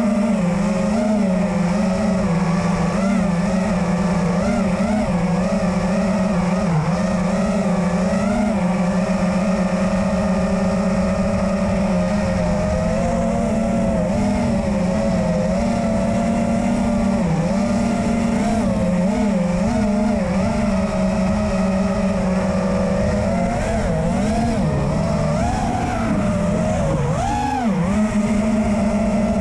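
The four 2306 2500kv brushless motors and props of a 5-inch FPV freestyle quadcopter on 4S, heard up close from on board, whining steadily under moderate cruise throttle. The pitch wavers a little with small throttle changes, and near the end it drops sharply and climbs back as the throttle is cut and punched.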